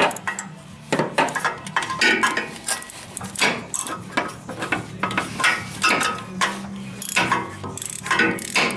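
Hand ratchet on an extension and spark plug socket clicking and clinking irregularly as a spark plug is worked loose a couple of turns.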